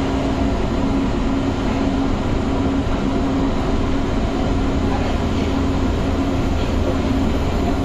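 Metro train running along an elevated track, heard from inside the coach: a steady rumble of wheels on rail with a steady low hum.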